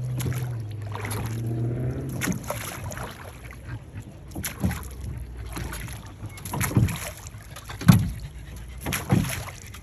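Rowboat being rowed: sharp oar knocks and short splashes at irregular intervals, over a low rumble. A low voice hums or murmurs briefly at the start.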